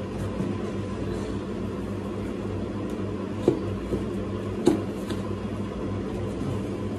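Steady hum of a window air conditioner running. Two short knocks about three and a half and nearly five seconds in.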